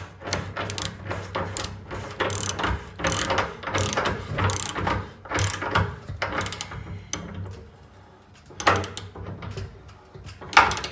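Rothenberger Uni Spanner, a ratchet radiator spanner, clicking as its ratchet is worked back and forth to screw a radiator valve tail into the radiator. A rapid run of clicks, a short pause, then two louder clicks near the end.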